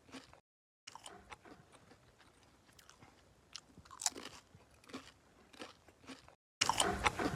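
A person biting and chewing crunchy food, with crisp crunches about once a second; after a short cut near the end the crunching comes louder and closer together.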